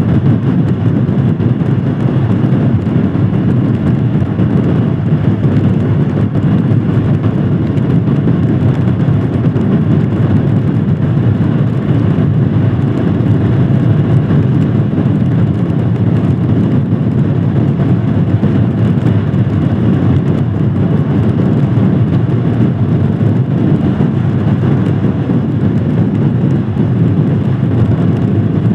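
Royal Enfield Scram 411's single-cylinder engine running at a steady cruise under way, mixed with a steady rush of wind and road noise.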